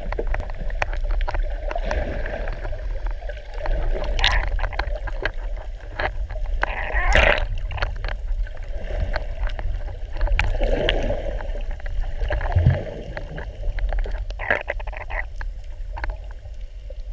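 Underwater sound heard through a camera housing: a steady low rumble of water moving past, with scattered sharp clicks and gurgling.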